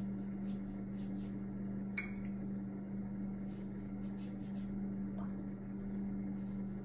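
Faint swishing strokes of a watercolour brush working paint across paper, over a steady low hum, with one sharp click about two seconds in.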